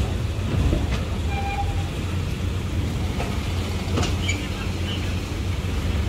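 Steady low engine rumble of vehicles boarding a ferry over its steel loading ramp, with a few sharp knocks, about a second in and again near four seconds.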